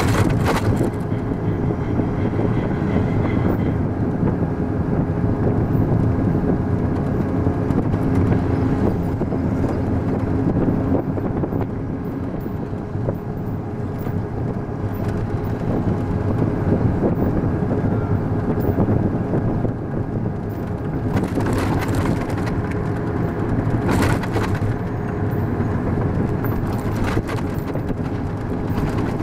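Military patrol vehicle driving, heard from its gun turret: steady engine and road noise, with a few brief rushes of noise in the last third.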